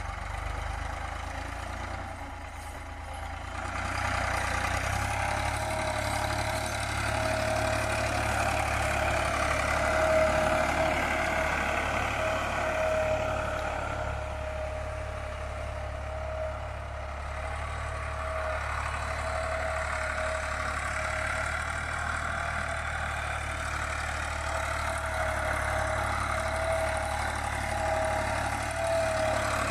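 Ford farm tractor's diesel engine running steadily while pulling a cultivator through tilled soil, a little louder from about four seconds in.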